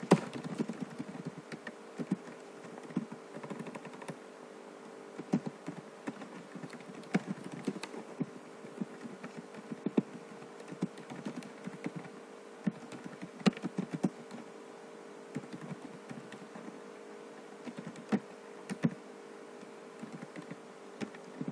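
Typing on a computer keyboard: irregular key clicks with short pauses, over a steady faint background hum.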